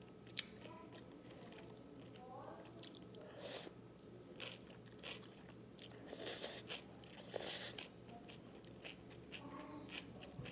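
Close-miked eating of naengmyeon (Korean cold noodles) with cucumber: chewing and crunching, wet mouth clicks, and two louder noisy bursts about six and seven and a half seconds in.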